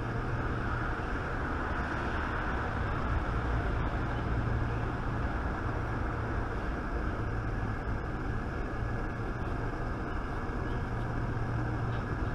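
Steady low mechanical hum and rumble, as of a machine running, with no clear knocks or clicks.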